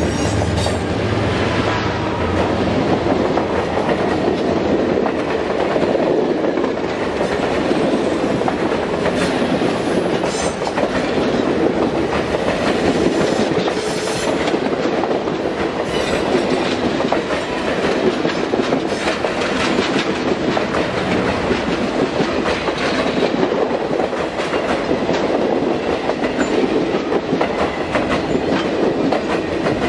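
Passenger train cars rolling past close by: a steady rumble of steel wheels on rail, with the clickety-clack of wheels over rail joints throughout. A low hum fades out about two seconds in.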